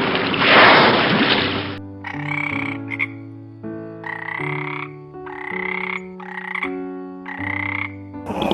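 A frog croaking in a run of about six calls, each under a second long, with short gaps between them. It follows a loud rushing noise in the first two seconds.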